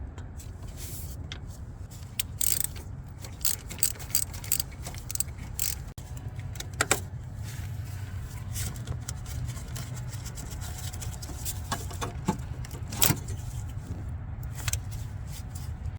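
Scattered metallic clicks and clinks of hand tools and bolts being worked loose, with sharper clicks about seven seconds and thirteen seconds in, over a steady low hum.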